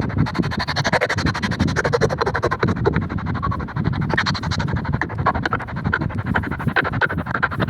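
Dense, scratchy rubbing: a fast, irregular crackling rasp that goes on steadily without pause.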